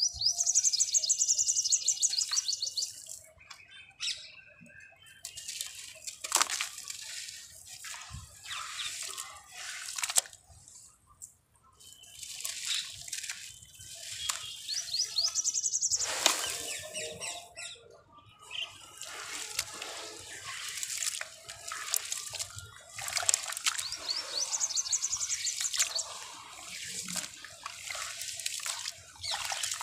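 Wet sand-cement clumps crumbled and squeezed by hand in a tub of water: gritty crunching, trickling and splashing in repeated bursts with short pauses. Some bursts carry a fine, rapid high crackle.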